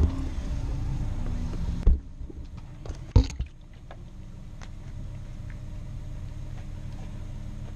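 A car engine idling steadily, with a sharp knock about two seconds in and another louder knock about three seconds in.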